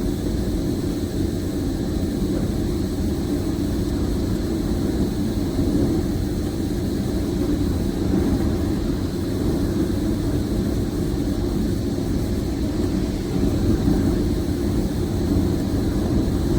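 Steady low engine drone, like heavy machinery running, unchanging throughout.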